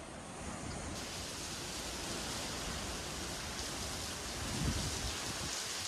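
Heavy typhoon rain pouring steadily, with a gust of wind buffeting the microphone about four and a half seconds in.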